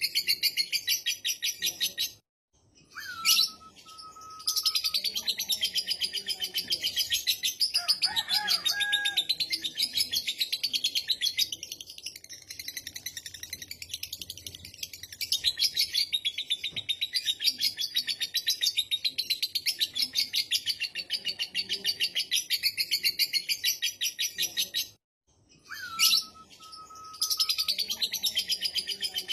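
Lovebird's long ngekek: a continuous, very rapid high-pitched chattering trill. It breaks off twice, about two seconds in and near the end, and each time restarts with a short falling whistle.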